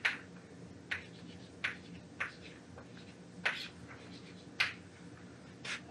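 Chalk striking and writing on a chalkboard: a string of short, sharp taps at uneven intervals, about seven in all.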